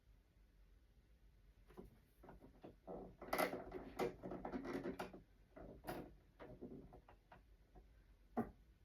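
Irregular clicking and clattering of hard objects being handled, densest in the middle, then one sharper knock near the end.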